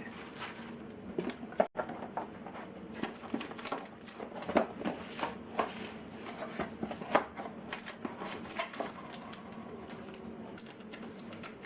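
Irregular light clicks, taps and small knocks of objects being handled, over a faint steady hum.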